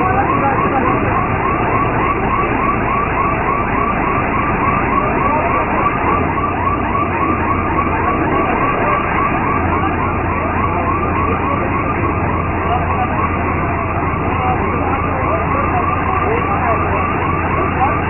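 Combine harvester machinery running steadily, with a warbling siren-like tone repeating about three times a second over it.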